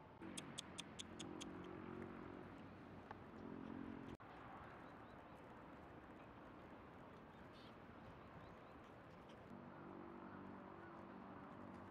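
Faint outdoor ambience: a quick run of about six light clicks near the start, and a low steady hum that fades in and out.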